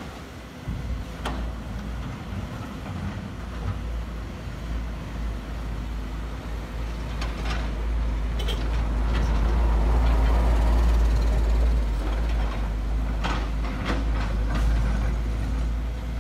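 Heavy diesel machinery at work: Sumitomo SH210F5 excavators and dump trucks give a steady low engine rumble that swells towards the middle. Several sharp metallic knocks and clanks come through it, with a cluster of them near the end.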